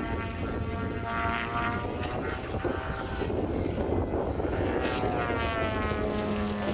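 Desert Aircraft DA-170 twin-cylinder two-stroke petrol engine and propeller of a large radio-controlled Extra 300 aerobatic model in flight, its pitch rising and falling as it manoeuvres.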